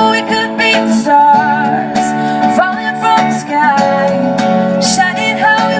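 Strummed acoustic guitar with a woman singing a pop song, played live.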